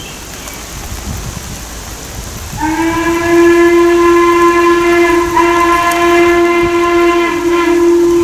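Steam locomotive whistle of Western Maryland Scenic Railroad No. 1309, a 2-6-6-2 Mallet, blowing one long steady blast that starts abruptly about two and a half seconds in and is still sounding at the end.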